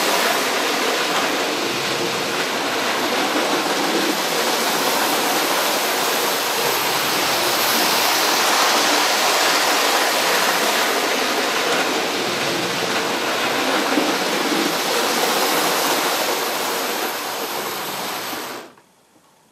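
OO-gauge Hornby HST model train running on the layout track, a steady rushing noise of wheels on rail and the motor. It cuts off abruptly near the end.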